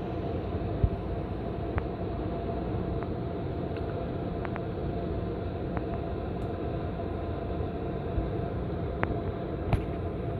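Hotel room air conditioner running with a steady drone and a faint steady tone, picked up close because the camera sits on top of the unit. A few sharp ticks are scattered through it.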